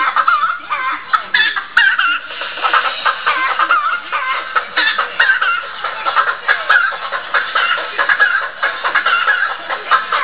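Fast, high-pitched chicken-like clucking and chattering that goes on without a break, many short squawks a second.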